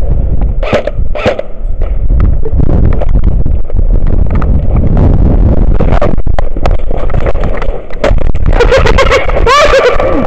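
Heavy rumble of wind and handling on a body-worn action camera's microphone as the wearer moves, with scattered clicks and knocks. Near the end comes a quick run of sharp clicks and a short shouted voice.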